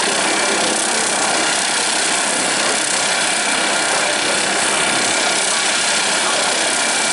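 Helicopter turbine engine running on the ground with the main rotor turning: a steady, even turbine whine and rush of air, with no change in pitch or level.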